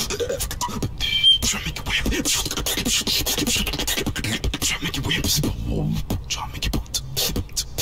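Beatboxing: a fast, dense run of percussive mouth sounds, one hit quickly after another, performed into a microphone.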